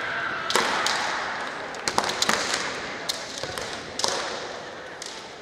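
Kendo exchange: bamboo shinai clacking against each other and against armour in a quick flurry of sharp cracks over the first two and a half seconds, with another crack about four seconds in, amid foot stamps on the wooden floor and shouted kiai.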